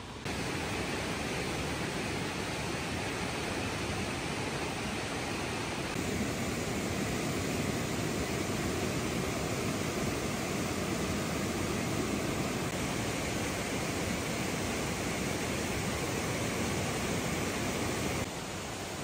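Steady rushing of river water flowing over rocks. It gets a little louder about six seconds in and drops somewhat near the end.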